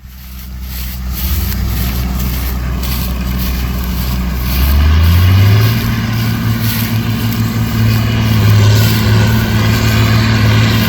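Heavy diesel engine running, fading in and then revving up about five seconds in, holding steady at the higher speed.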